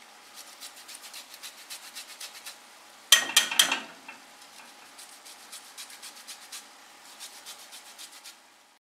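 Lemon being zested on a fine handheld rasp grater: quick, even scraping strokes, several a second, as the peel is rubbed over the blade. About three seconds in there is a brief louder clatter of a few knocks.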